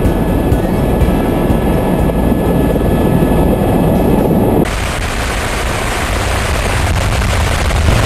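Helicopter in flight, with steady rotor and engine noise and thin whining tones over it. About four and a half seconds in the sound changes abruptly to a brighter, hissier rush of rotor and air noise.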